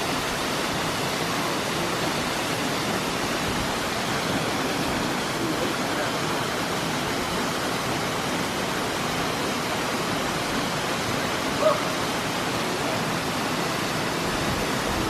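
Steady rushing of a waterfall, an even hiss of falling water with no change in level.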